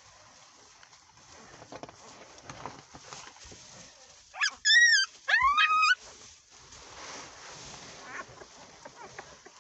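Newborn Central Asian Shepherd puppy squealing twice in quick succession, high-pitched cries about four and a half seconds in, the first falling in pitch and the second rising then holding. Soft rustling in the hay bedding runs under it.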